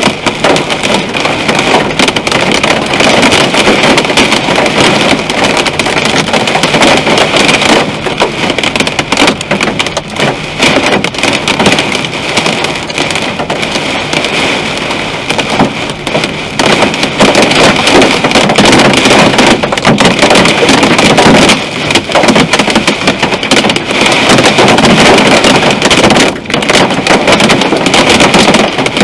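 Heavy storm downpour drumming on a car's roof and windscreen: a loud, dense, steady clatter of countless small impacts.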